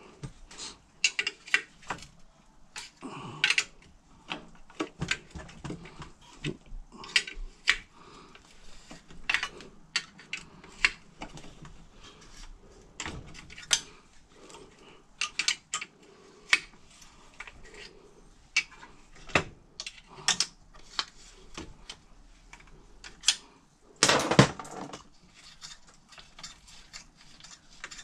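Irregular metallic clinks and clicks of an 18 mm spanner working the already-loosened front axle bolts of an electric scooter, as the spanner and bolts are handled and set down, with a longer, louder rattle about 24 seconds in.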